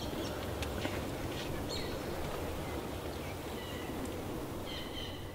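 Quiet winter-woods ambience: a steady low rumble under a faint outdoor hiss, with a few short bird calls, about three, the last one near the end.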